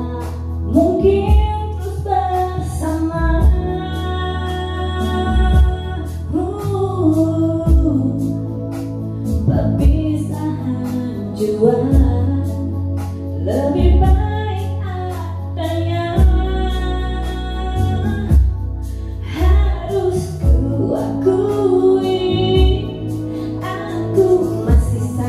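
A female voice singing a slow, melodious song over an instrumental backing with a steady bass and a regular beat.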